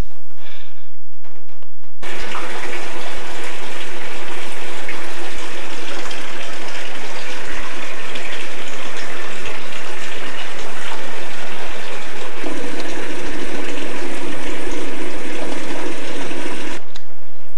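Loud, steady rushing of storm floodwater. It starts abruptly about two seconds in and cuts off suddenly near the end.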